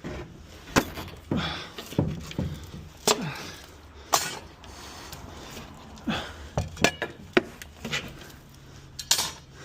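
Pieces of particle board and wood debris being handled and dropped onto a pile: a string of irregular wooden knocks and clatters, the sharpest about four seconds in and another near the end.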